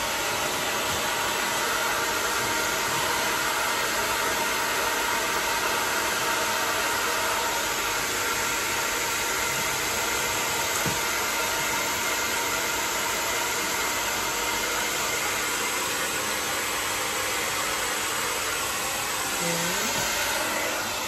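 Handheld electric hair dryer running steadily, a constant rush of air with a faint motor whine, switched off near the end.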